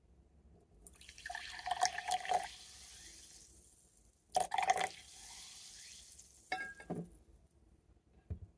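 Carbonated soda water poured from a plastic PET bottle into a drinking glass in two pours, splashing and glugging, with the fizz hissing and dying away after each pour. A sharp glass clink comes about two-thirds in, and a soft knock near the end.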